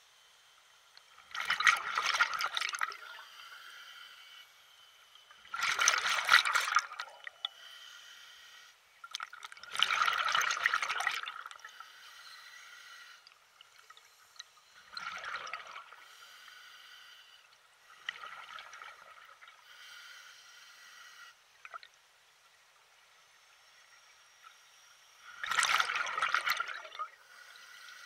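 Lake water lapping and splashing in small waves, a wash every four to five seconds, some louder than others.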